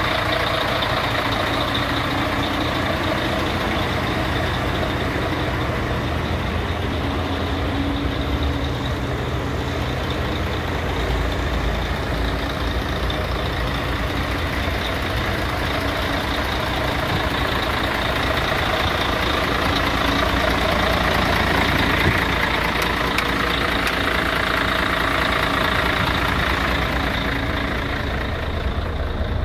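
Mercedes-Benz Actros 4140 truck's diesel engine idling steadily, a constant low drone with a hum. Near the end the upper part of the sound dulls.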